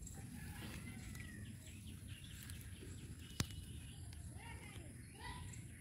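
Faint outdoor ambience of birds chirping over a steady low background rumble, with a single sharp click about three and a half seconds in.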